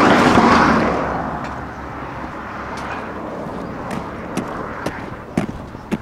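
A passing vehicle whose noise swells and fades away over the first two seconds, then footsteps on asphalt, about two a second, starting about four seconds in.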